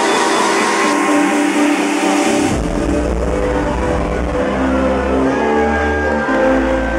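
Electronic dance music from a DJ set played loud over a club sound system: synth chords over a build with the bass cut out, then the bass line drops back in about two and a half seconds in and pulses on.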